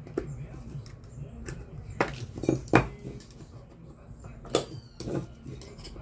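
Sharp metal clicks and scrapes from a small screwdriver working at the stamped-metal rear end cap of an electric fan motor, prying up the retaining tabs that hold its worn sleeve bushing. The clicks come in a cluster about two to three seconds in and again around four and a half to five seconds.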